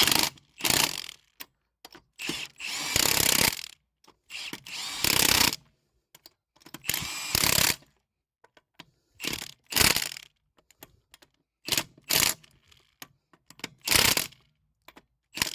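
Battery-powered impact wrench running on a wheel's lug nuts in about nine short bursts, longer ones early on and shorter pulses later, with pauses between them.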